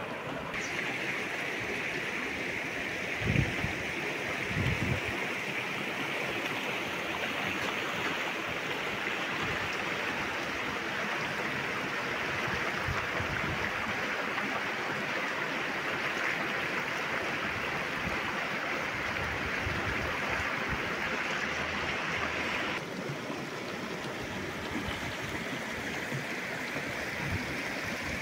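River water rushing steadily, with two dull thumps about three and five seconds in. The rush changes suddenly a few seconds before the end.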